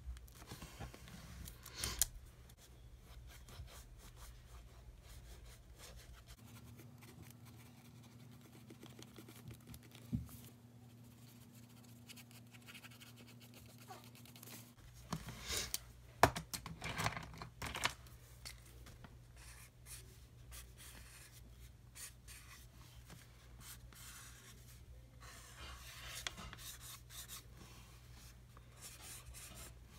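Felt-tip markers scratching and rubbing across journal paper while coloring, with a few sharp clicks and taps about halfway through as markers are handled. A faint steady low hum sits underneath.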